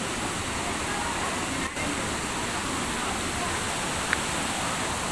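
Waterfall pouring into a rocky plunge pool: a steady, even rush of falling and churning water, with a momentary dip about a second and a half in and a short high squeak about four seconds in.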